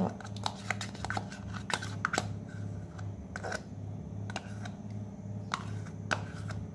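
Scattered light clicks and taps of a spoon and kitchen utensils against bowls and containers, over a steady low hum that pulses a couple of times a second.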